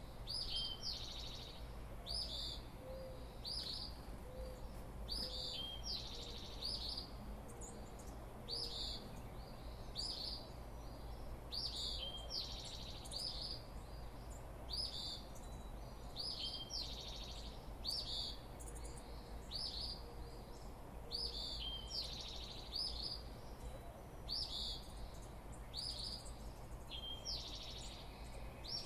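Dawn chorus: a songbird repeats a short, high song phrase every second or so, over a steady low background rumble. A few faint low notes come in the first several seconds.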